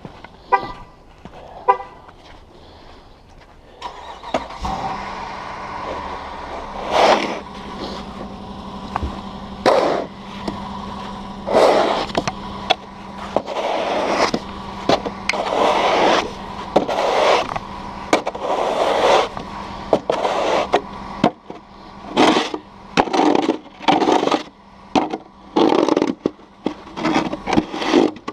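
Car horn chirping twice, then the car's engine starting and running at a steady idle. Over it, a snow shovel scrapes through snow again and again, a stroke every second or two.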